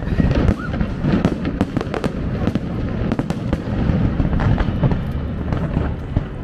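A large fireworks display going off: a dense, rapid run of sharp cracks and bangs over a constant low booming.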